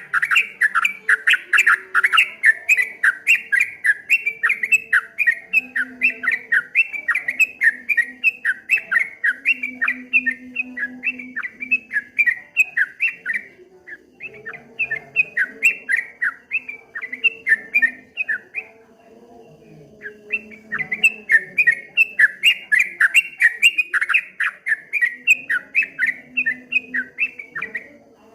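Yellow-vented bulbul (trucuk) singing a fast rolling 'ropel' song: a rapid run of short whistled chirps, about four to five a second. The song breaks off briefly about halfway and again for a second or so about two-thirds of the way through.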